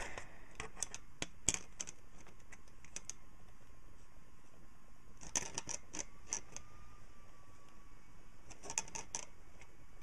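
Needle-nose pliers clicking and scraping against a potentiometer's metal mounting nut as it is tightened. The clicks come in three short clusters: about half a second in, around five to six seconds, and near nine seconds.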